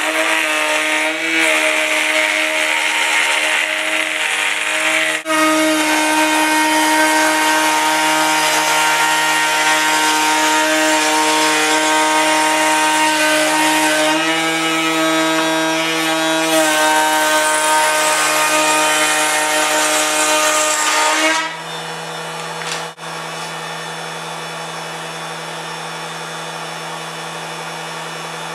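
A power tool cutting wood, its motor running at a steady pitch under load. A little over 21 seconds in the cut ends, and the tool keeps running freely and more quietly.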